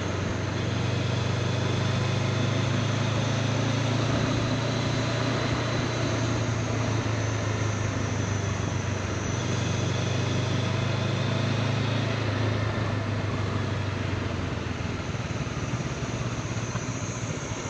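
Honda CB500X parallel-twin engine running at steady road speed under a constant rush of wind and road noise, easing off a little near the end.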